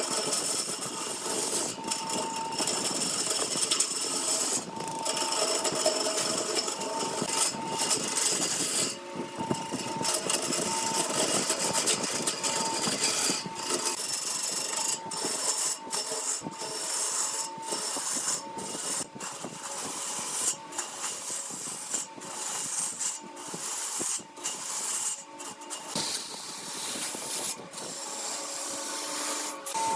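A wood lathe runs with a steady motor whine while a turning tool cuts the spinning wood in a hissing scrape. The sound breaks off briefly many times, more often in the second half.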